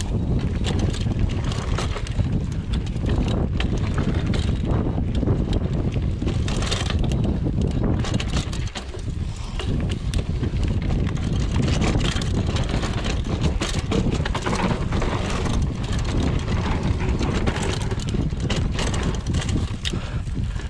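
Mountain bike ridden along a dirt singletrack: steady wind noise on the camera microphone over the rumble of tyres on dirt, with frequent clicks and rattles from the bike over bumps.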